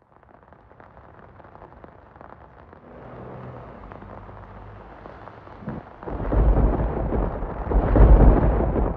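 Rain hiss that starts suddenly and slowly builds, joined about six seconds in by a loud, low rumble of thunder that peaks near the end.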